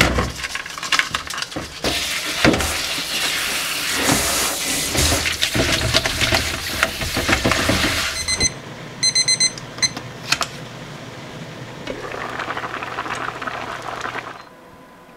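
Tap water running over mangosteens in a plastic colander in a stainless-steel sink, with clatter from the fruit being handled. A run of short electronic beeps follows for about two seconds, then a stew simmering softly in a pan until the sound drops away near the end.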